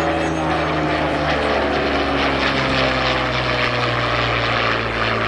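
P-40 Warhawk fighter flying over, its V12 piston engine and propeller running steadily, the engine note slowly falling in pitch.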